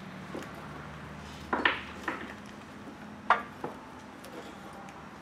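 Handling noise at the transmission cooler line, which has clear flush tubing hanging from it: two pairs of sharp clinks, about a second and a half apart, over a steady low hum.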